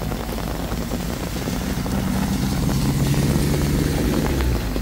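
A small pickup truck drives slowly past on a wet road, its engine hum growing louder as it comes near and passes, then easing off near the end.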